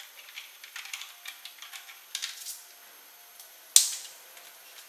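Small clicks and rattles of hands working a rear turn-signal indicator on a motorcycle's tail-tidy bracket, with one sharp, louder click a little under four seconds in.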